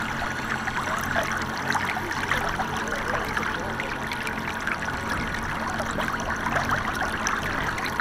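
Lake water lapping and splashing close to the microphone: a steady wash of small trickling splashes from wind-driven chop.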